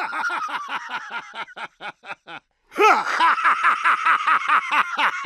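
A cartoon character's rapid, high-pitched laughter: two long runs of quick 'ha-ha' syllables, about seven or eight a second, with a short break about two and a half seconds in.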